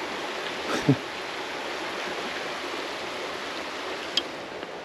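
Creek water rushing steadily. About a second in there is a brief sound falling in pitch, and a little past four seconds a single sharp click.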